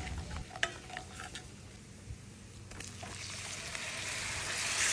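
Garlic butter sizzling in a hot frying pan, faint at first with a few small clicks, then a hiss that swells steadily from about halfway through.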